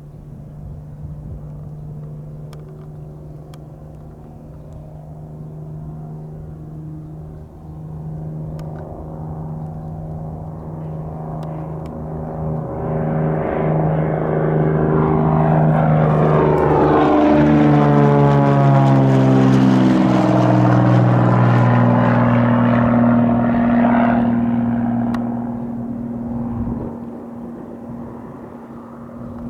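Cirrus SR22 GTS single-engine propeller plane taking off, its piston engine at full power with a steady tone. It grows louder as it approaches, passes close by around two-thirds of the way in with the engine and propeller pitch dropping, then fades as it moves away.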